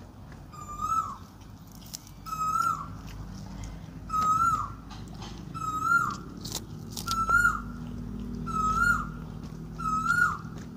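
A bird calling over and over: the same short whistled note about every second and a half, each ending in a downward slur.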